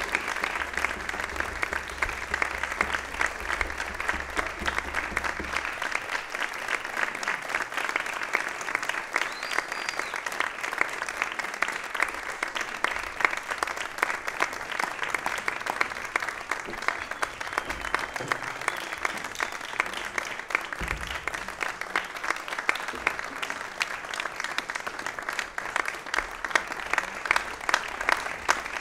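Audience applauding, a dense and steady clapping with no break. A faint low hum underneath stops about six seconds in.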